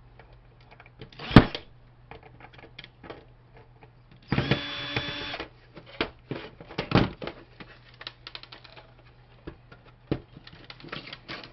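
Cordless drill/driver spinning screws out of a DVD-ROM drive's sheet-metal case: a brief whir with a sharp click about a second in, and a second-long run of the motor around four and a half seconds in. Light clicks and knocks follow as the metal drive case is handled.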